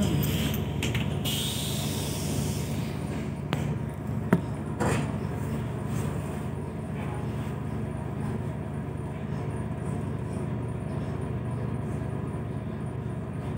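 ED4M electric train giving a steady low rumble and hum, with a short hiss near the start and a few sharp clicks about four seconds in.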